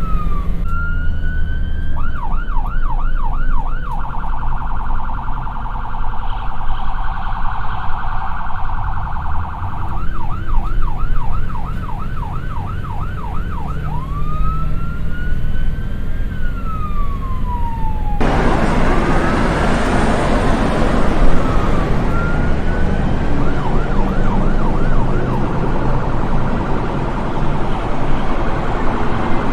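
Electronic emergency-vehicle siren switching between modes: a slow rising and falling wail, a fast repeated yelp, and a very rapid high trill, then back to yelp and wail. About 18 seconds in it cuts to a loud rush of traffic and engine noise, with a fainter siren wailing and yelping over it.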